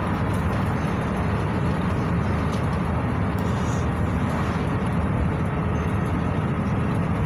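Steady running noise inside the cabin of a GAZelle Next A64R45 minibus driving along a road: the Evotech 2755A engine and tyre and road rumble, even and unbroken.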